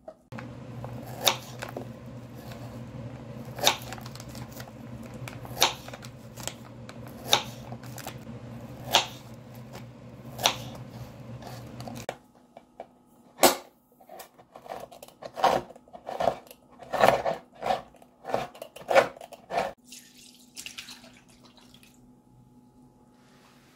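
Kitchen knife strokes hitting a plastic cutting board, one sharp click about every second and a half over a steady low hum. About halfway through, the hum stops and a quicker, uneven run of knife taps follows.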